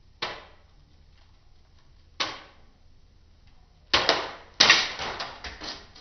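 Homemade exit sign being knocked about by a spinning ceiling fan's blades as it falls: a sharp clack about a quarter second in, another about two seconds in, then a rapid clatter of hits from about four seconds to nearly six, the loudest just under five seconds in. The fan's faint low hum runs underneath.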